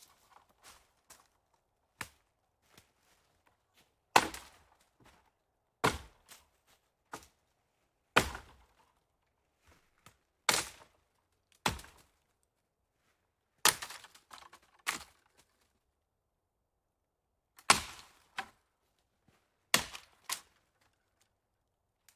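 Footsteps of a hiker crunching over forest floor, snapping twigs and dry debris underfoot. The steps come at a slow, uneven pace, about one every one to two seconds, some followed by a lighter second crunch, with a pause of about two seconds past the middle.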